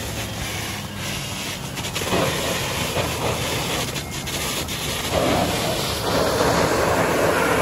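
Gas-powered saw cutting into burned debris, a gritty rasp that comes in uneven pulses over a steady low engine hum and grows louder about two seconds in.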